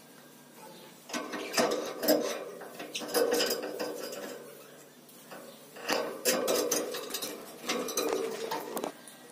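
Lory clambering on a metal wire cage, its claws and beak clinking and rattling the wires in several bursts of clicks.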